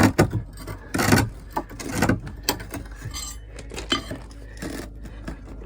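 Irregular clinks and knocks of hard parts being handled and tapped as a foundation panel is worked into place, the loudest at the start and about a second in.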